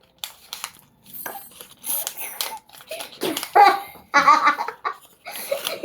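Children laughing and giggling in short bursts, with rustling and crinkling of blind-box packaging.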